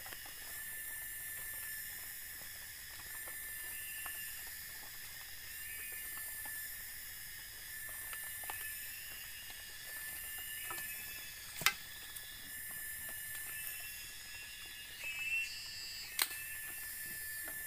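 Forest insects droning: a steady high buzz with shrill layers that swell and fade about every two seconds, and short chirps in between. Two sharp cracks stand out, one about two-thirds of the way in and one near the end.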